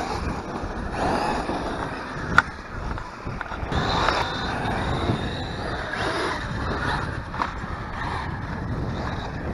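Electric RC cars driving on concrete: tyres rolling with a continuous rumble that swells and fades, a faint high motor whine for a couple of seconds near the middle, and one sharp knock about two and a half seconds in.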